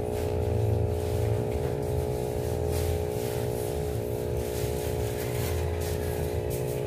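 AP-226 aquarium air pump, a small mains-powered diaphragm pump, running with a steady buzzing hum.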